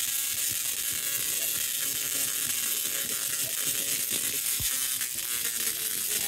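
Tesla coil firing, its arcs discharging with a harsh, steady buzz and crackle.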